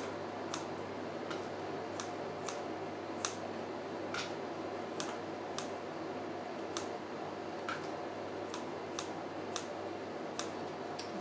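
Kitchen scissors snipping oily sun-dried tomatoes into small pieces: a short, sharp click at each cut, about fifteen snips at an uneven pace, over a low steady hum.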